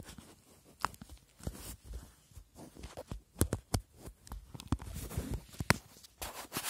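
Irregular clicks, taps and rubbing as a smartphone is pushed and fitted into a phone case, handled right against the microphone.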